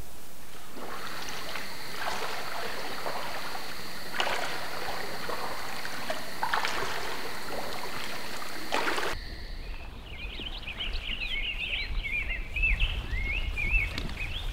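Kayak paddle strokes, a splash from the blade dipping into calm water every two seconds or so over a steady hiss of running water. About nine seconds in it cuts suddenly to a low wind rumble with many short, high chirping calls.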